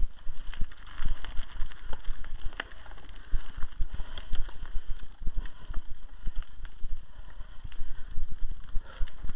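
Mountain bike climbing a dry gravel track: tyres crunching over loose stones, with irregular clicks, knocks and rattles and a steady low thumping on the camera's microphone.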